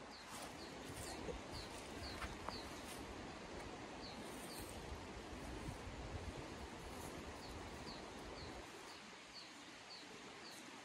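A small bird calling: short, high, down-slurred notes in runs of a few, about three a second, with pauses between the runs, over a steady outdoor hiss.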